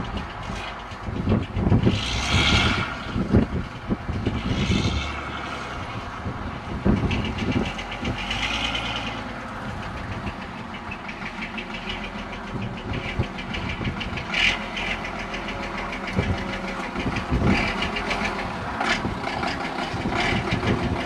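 City bus diesel engine running as the bus drives slowly along a muddy field track, with a few short hissing surges in the first half.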